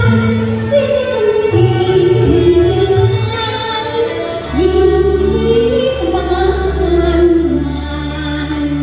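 Cantonese opera song music: a high melody of long, sliding held notes over a steady low accompaniment.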